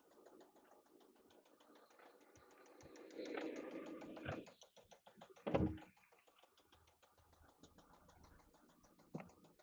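1995 Toyota Camry's 5S-FE four-cylinder engine running with a fast, steady knocking that sounds terrible, the sign of an internal failure after something in the motor let go. The running gets louder for about a second and a half from around three seconds in, and there is a short loud sound a little later.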